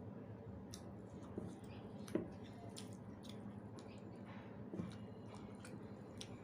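Close-up chewing and wet, squishy mouth sounds of someone eating soft rice with dal and curry, with scattered small smacks and clicks; a slightly louder smack comes about two seconds in.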